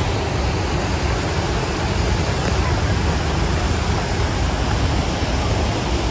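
Rushing river rapids and falls: a steady, even noise of fast water flowing over rocks.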